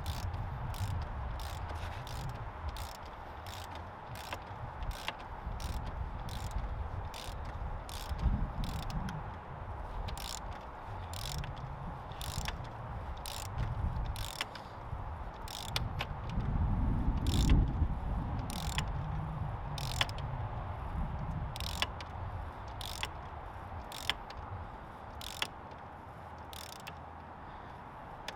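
Ratchet wrench clicking steadily, about two clicks a second, as the top cap of a RockShox Boxxer fork is tightened down. Low handling rumble runs underneath and swells about two-thirds of the way through.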